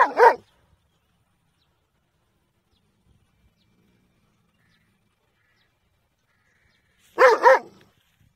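Dog barking: two quick barks right at the start, then quiet for several seconds, then another pair of quick barks about seven seconds in.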